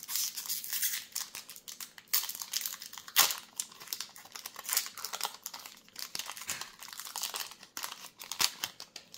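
Foil-lined Magic: The Gathering Collector Booster pack wrapper being torn open and crinkled by hand: many quick irregular crinkles, the loudest a sharp crackle a little after three seconds in.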